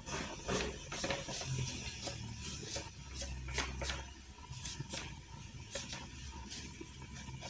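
Felt-tip marker scratching and tapping on paper in short, irregular strokes as a neckline curve is drawn on a paper pattern, over a faint steady low hum.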